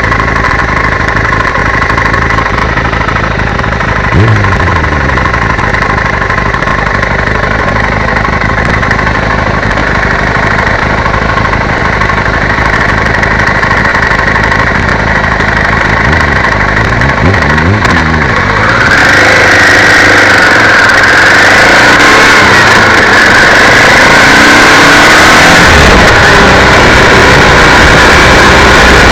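Motorcycle engines idling, with a short rev about four seconds in and a few rising and falling revs around 16 to 18 seconds. After about 19 seconds it changes to the louder, steady sound of the motorcycles riding off, engine mixed with wind rush.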